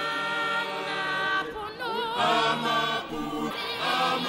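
A large group of voices singing together in harmony, holding long notes with a slight waver.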